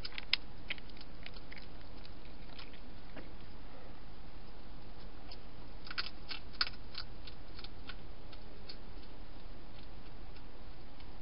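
A cat crunching dry food from a bowl: sharp crunchy clicks in the first second or so, then a second cluster of crunching clicks about six seconds in, over a steady background hiss.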